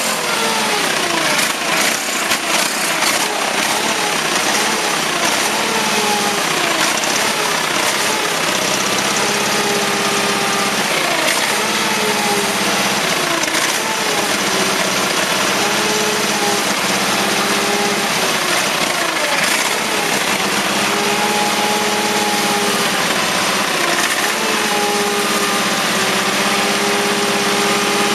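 Case lawn tractor's 20 HP Onan twin-cylinder engine running on a prime of gas poured down the carburetor, its speed wavering up and down at first and then holding steadier. The owners suspect a carburetor needing cleaning or a weak fuel pump.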